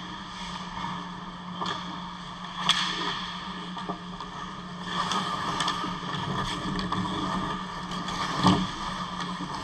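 Ice hockey play close to the goal: skates scraping the ice and sticks and puck clacking, with a few sharp hits (the loudest near the end), over a steady low hum.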